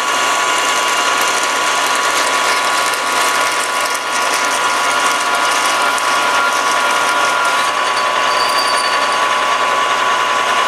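Metal lathe running while a twist drill in its chuck bores into a spinning metal shaft: a steady machine whine over a dense, high cutting hiss, with chips curling off the bit.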